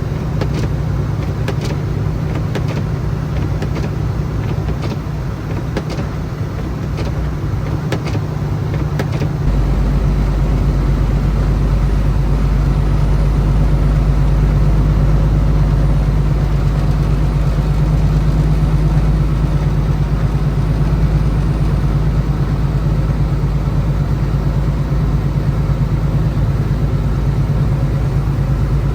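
Semi truck's diesel engine and road noise heard from inside the cab while driving, a steady low drone. Scattered sharp clicks in the first several seconds; about nine seconds in the deep rumble grows louder and holds.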